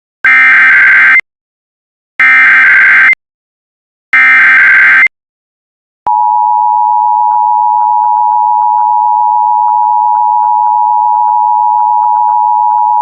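Emergency Alert System SAME header: three one-second bursts of warbling digital data tones, two seconds apart, coding the alert, here an earthquake warning. About a second after the third burst comes the steady two-tone EAS attention signal (853 and 960 Hz), which holds on.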